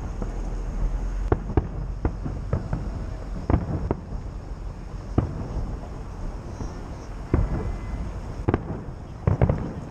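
Fireworks salute: aerial shells bursting in sharp bangs at irregular intervals over a steady low rumble, with a quick cluster of bangs near the end.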